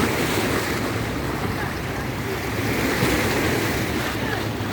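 Sea waves washing in and breaking, swelling near the start and again about three seconds in, with wind buffeting the microphone.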